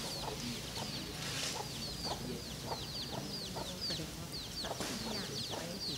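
Birds calling: a steady run of short, high, falling chirps, several a second, over lower clucking calls.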